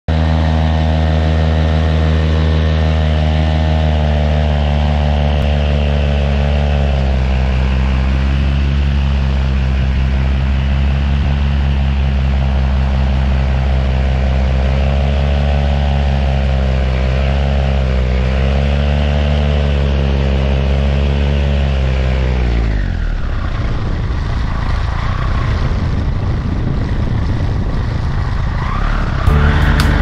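Paramotor engine and propeller running steadily at cruise power, the pitch wavering slightly. About 22 seconds in it is throttled back and drops to a lower, uneven running.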